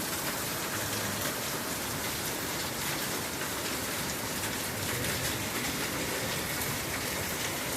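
Steady rain falling in a thunderstorm: an even hiss with no separate hits standing out.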